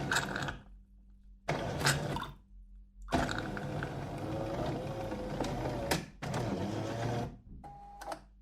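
Electric coffee machine running its motor in several short bursts and one longer run of about three seconds, over a steady low hum, followed by a brief tone near the end.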